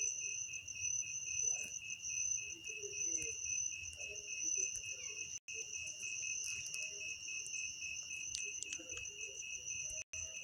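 A cricket trilling steadily in a high, finely pulsing tone, with a faint low murmur underneath.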